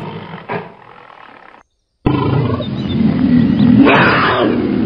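Tiger growling and roaring, with the loudest roar about four seconds in. There is a brief silent break just before the halfway point.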